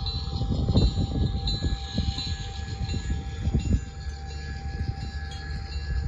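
G-scale model freight train of coal hoppers rolling past on garden track, its wheels clicking and clattering over the rail joints over a low rumble; the clicking thins out after about four seconds, leaving a steadier rumble.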